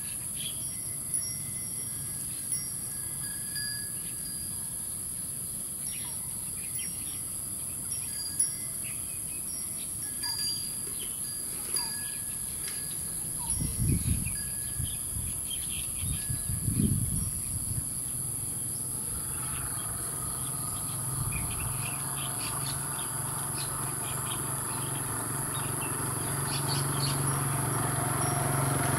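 Small birds chirping and calling on and off in a rural pasture, with two low thumps near the middle. From about two-thirds of the way through, an engine hum grows steadily louder, as if a vehicle were approaching.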